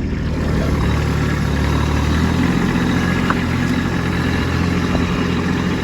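Kubota B2601 compact tractor's three-cylinder diesel engine running steadily, its note shifting slightly a little over two seconds in.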